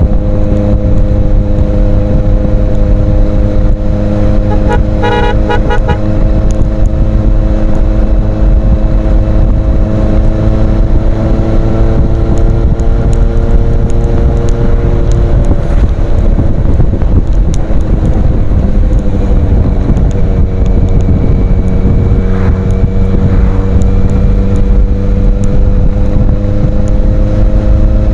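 Kawasaki Z800's inline-four engine running through an aftermarket Ixil exhaust, a steady loud drone whose pitch sags slowly midway and climbs again near the end. A brief horn-like beeping sounds about five seconds in.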